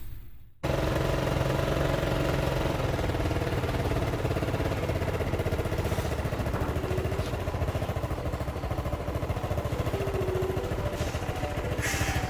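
RC scale model of a Kobelco 330LC excavator running: a steady motor drone with rapid even pulsing and a held whine, starting abruptly about half a second in. The whine's pitch shifts a little near the end as the load changes.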